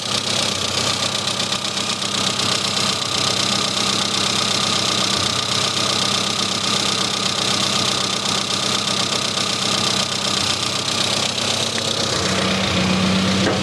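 Classic Mini's four-cylinder A-series engine idling steadily while its carburettor idle mixture screw is being set, the air-fuel mixture swinging lean and back towards about 14:1. The idle note is a little louder near the end.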